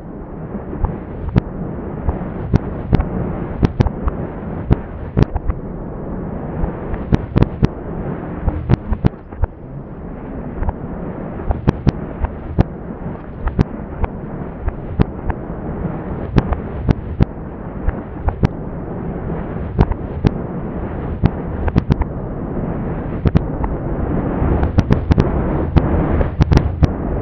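Fireworks: a dense run of sharp bangs and cracks, several a second at times, over a continuous low rumble that grows louder near the end.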